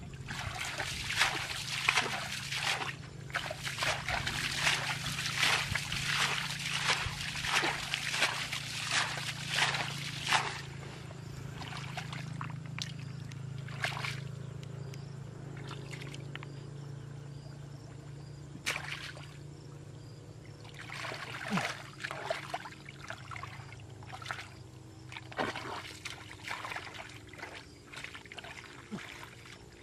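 Hands groping and scooping through shallow muddy water and mud to feel for fish, splashing and squelching in quick, dense strokes for about the first ten seconds, then in sparser splashes.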